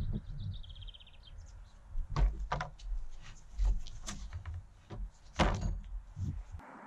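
A handful of sharp knocks and clinks as rusty metal rods are handled and set down in a ribbed metal tray, over a low rumble of wind on the microphone. Near the start, a short run of quick high chirps.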